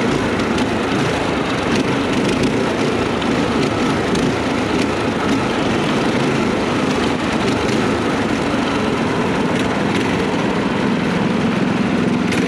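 The small single-cylinder engines of a four-engine off-road go-kart running steadily under load as it drives over rough, grassy ground.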